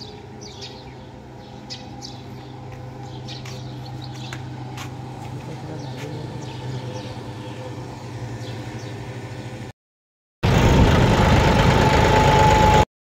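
A steady low mechanical hum with birds chirping over it. Then, after a short break, a much louder John Deere 5310 diesel tractor engine running on the road, with wind rushing on the microphone and a steady whine.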